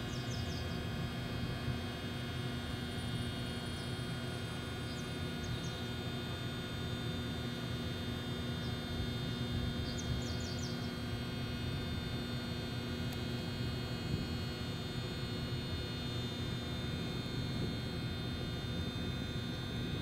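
Steady electrical hum made of many tones over a low rumble, with short high chirps of a small bird a few times, in quick series of three or four.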